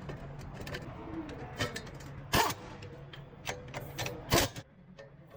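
Scattered clicks and knocks of tools and metal parts being handled during a rear wheel bearing job, with two louder knocks about two and a half and four and a half seconds in, over a low steady hum.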